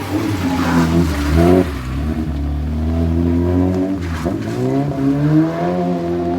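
Car engine revving under load. Its pitch climbs, falls back sharply twice, and climbs again, as when the throttle is lifted or a gear is changed.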